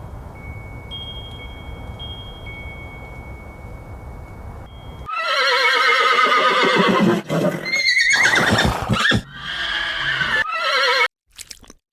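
Horse whinnying: several loud, quivering neighs starting about five seconds in, after a few seconds of quieter steady background noise with a faint high tone.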